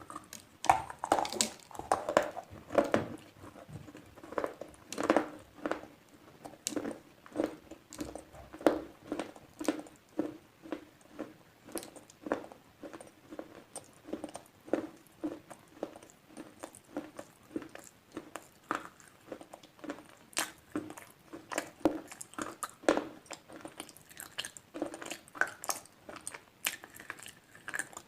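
A person biting and chewing slate pencils close to the microphone: a steady run of sharp, crisp crunches, about two a second.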